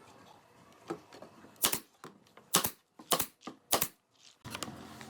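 A run of about five sharp knocks at uneven intervals over roughly three seconds, with quiet between them.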